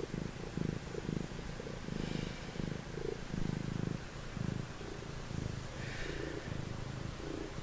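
Tabby cat purring close to the microphone, a low rumble that swells and eases with each breath in and out, about one or two pulses a second.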